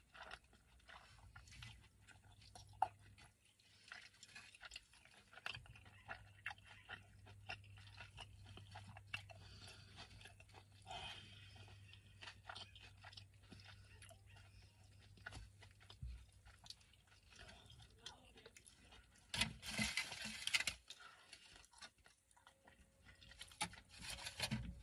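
Close-miked chewing of a Chipotle burrito: scattered soft mouth clicks and smacks, with two louder, noisier stretches near the end.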